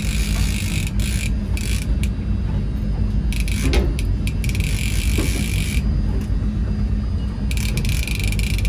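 A large conventional trolling reel being cranked in spurts, giving a high rasping whir that starts and stops, over the steady low rumble of the boat's engine idling.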